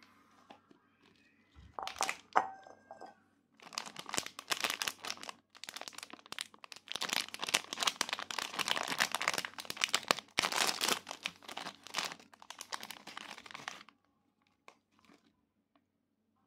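Plastic wrapper of a pork floss cake being torn open and crinkled by hand. There are a few sharp clicks about two seconds in, then about ten seconds of dense crackling, stopping a couple of seconds before the end.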